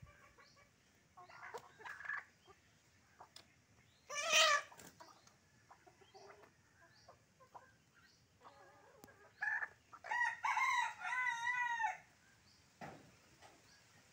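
Chickens clucking softly, with a loud call about four seconds in. About ten seconds in, a rooster crows for about two seconds in several linked segments.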